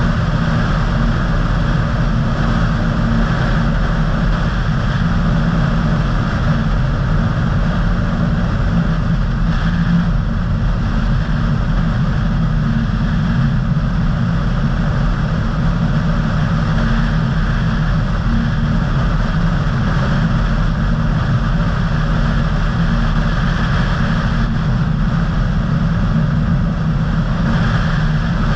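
A car driving at a steady pace: even road and engine noise with a low rumble, unchanging throughout.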